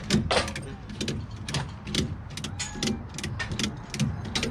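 Ratchet strap being cranked tight, a run of sharp, irregular metallic clicks from the ratchet's pawl.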